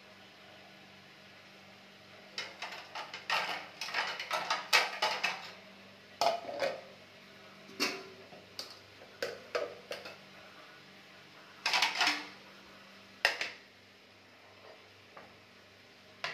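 Kitchenware being handled on a countertop: a steel saucepan, a plate and a ceramic mug set down and moved, giving scattered clinks, knocks and scrapes in a few clusters, over a faint steady hum.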